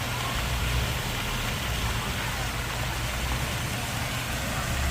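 Steady street ambience: a vehicle engine's low hum under an even, rain-like hiss.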